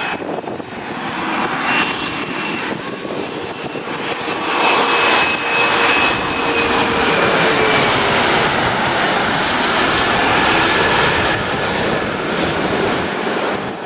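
Bombardier CRJ regional jet's twin rear-mounted turbofans on landing approach, flying low overhead: a steady jet noise that grows louder about four seconds in and stays loud, with whining tones sliding slowly downward as it passes.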